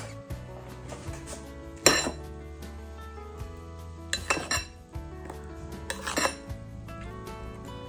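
Metal spoon clinking against a glass bowl while stirring and scooping blended fruit puree. The clinks come in three spells, about two, four and six seconds in, over background music.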